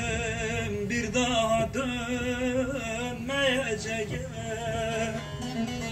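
Music: a man singing long, wavering, ornamented notes, over a steady low hum of car engine and road noise.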